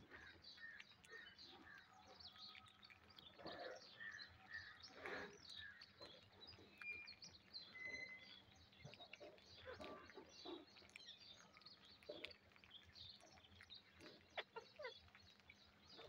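Faint chirps and short whistled notes from a flock of rose-ringed parakeets feeding, with scattered soft ticks of beaks picking seed off concrete.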